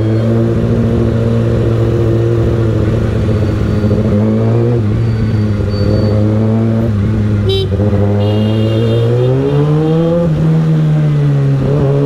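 Kawasaki Ninja ZX-6R's inline-four engine with a Graves Motorsport aftermarket exhaust, running at low road speed with a steady pitch that dips and then climbs as it accelerates about nine seconds in. A vehicle horn beeps briefly about eight seconds in.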